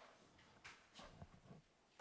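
Near silence in a small room, with a few faint soft rustles of paper being handled, about midway through.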